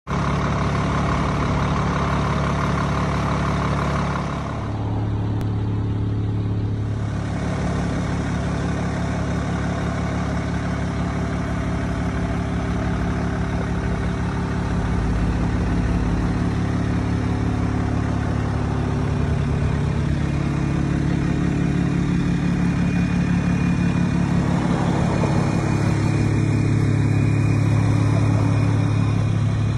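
Mercedes estate car's engine idling steadily, a low hum that shifts slightly in pitch a couple of times.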